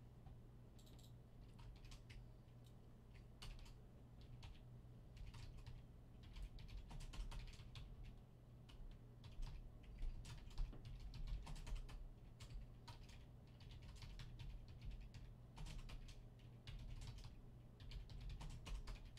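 Quiet typing on a computer keyboard: irregular runs of keystroke clicks, busiest in the middle and near the end, over a steady low hum.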